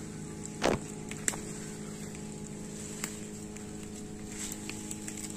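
A steady low mechanical hum, like a motor running at a distance, with one short crackle under a second in and a few light sharp clicks.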